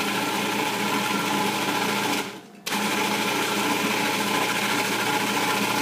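Food processor motor running, chopping and blending arugula walnut pesto as olive oil is added. It stops about two seconds in and starts again half a second later.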